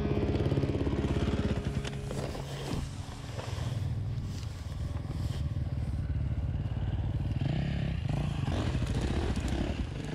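Enduro dirt bike engines running and revving, the pitch rising and falling a few times.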